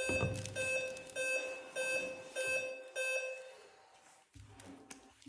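Laptop flash-arithmetic program sounding a short chiming beep with each number it flashes, about every 0.6 seconds, six times in a row; the last one rings out a little over a second in from the end, marking the end of the number sequence.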